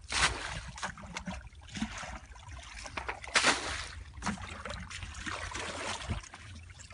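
Shallow muddy water splashing and sloshing as hands and feet work through it, with two louder splashes, one just after the start and one about three and a half seconds in.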